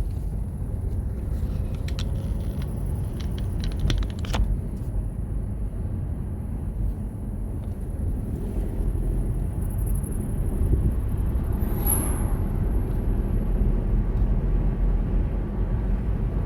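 Car driving, with a steady low rumble of engine and road noise and a few sharp clicks a few seconds in.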